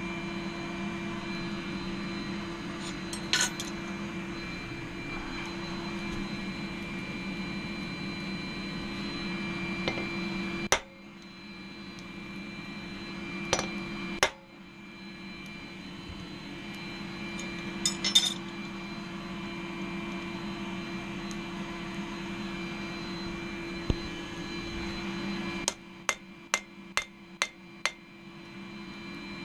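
Gas forge burner running with a steady hum, which fades and returns as the smith moves to and from the forge, with a few scattered metal clinks. Near the end come about six quick, evenly spaced hammer blows on an anvil as a hot knife blade is forged.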